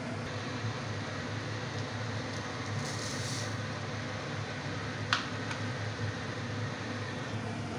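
Steady hum and hiss of a kitchen background, with a brief high hiss around three seconds in as sugar is poured into the pan. A single sharp clink about five seconds in.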